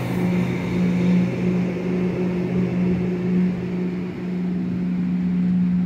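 Motorboat engine running at a steady pitch, over the rush of rough tidal water through the inlet.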